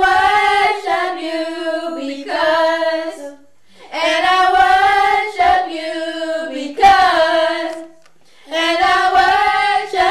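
Unaccompanied singing of a worship song: long held, wavering notes in three phrases, broken by two short pauses for breath.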